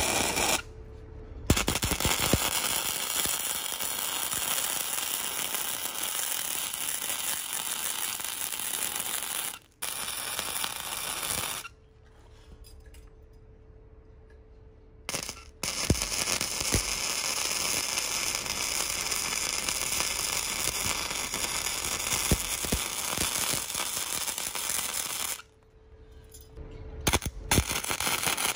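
Electric arc welding: a steady crackling, frying sound in three long runs of several seconds, stopping for a few seconds at about 12 s and again at about 25 s.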